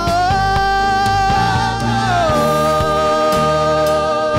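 Gospel worship song sung live with band accompaniment: a sung note is held, slides down to a lower note about two seconds in, and holds again over bass and drum beats.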